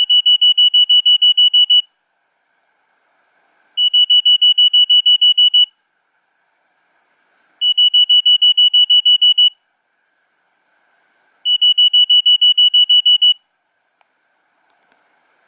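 Nokia 3100 mobile phone playing a monophonic ringtone: one high beep pulsed rapidly, about six beeps a second, in bursts of just under two seconds, repeated four times about every four seconds.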